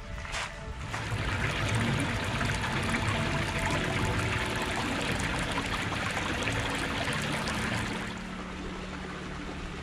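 Water bottle held under the surface of a pool, filling with water. The water sound eases off about eight seconds in.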